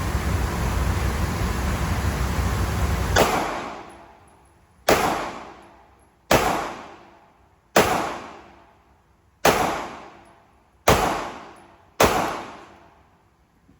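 Taurus G3C Tactical 9mm pistol fired in slow, single shots: seven shots about one and a half seconds apart, each echoing away before the next. Before the first shot, a steady rushing noise fills the first three seconds.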